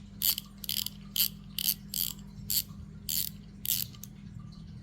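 Drag of a Daiwa Caldia SW spinning reel clicking in about nine short ratcheting bursts, roughly two a second.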